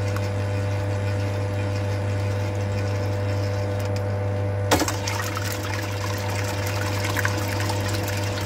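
Stand mixer motor running steadily, its wire whisk beating egg whites in a stainless steel bowl toward a foam. A single sharp knock a little past halfway, after which the whisk's rattle sounds brighter.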